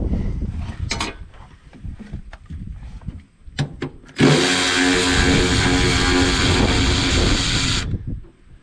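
A few knocks and clanks over a low rumble. Then, about four seconds in, a power tool runs steadily with a whine for about three and a half seconds and stops suddenly, driving out a bolt on the loader's belt shroud.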